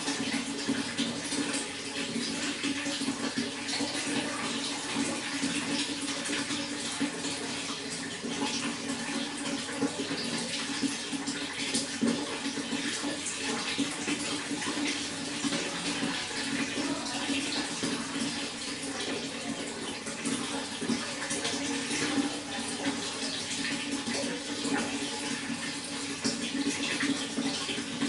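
Running water flowing steadily, with no break.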